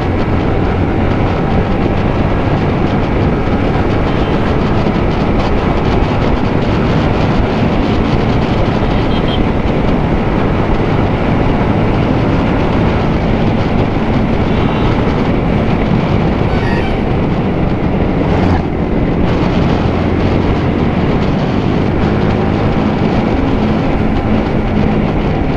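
Yamaha MT15's single-cylinder engine running under way on a motorcycle ride, a steady drone whose pitch shifts with the throttle, dipping briefly about two-thirds of the way through.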